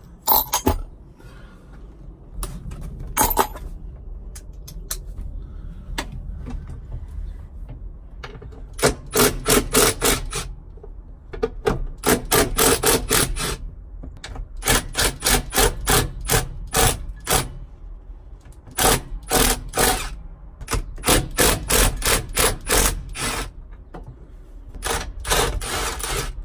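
Socket ratchet clicking in repeated short, rapid runs, stroke after stroke, as the 9/16-inch bolts holding the steering column under the dash are loosened. The clicking starts about nine seconds in, after a few single knocks.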